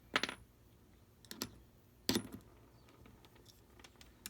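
A few sharp clicks and taps of a screwdriver and small metal pieces being handled, the loudest about a fifth of a second in, then others around one and a half and two seconds, and a last one near the end.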